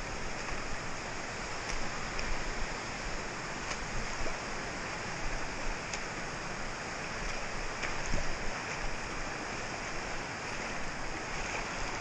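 Shallow creek water running and rippling over a sandy bed: a steady rushing with no pitch to it.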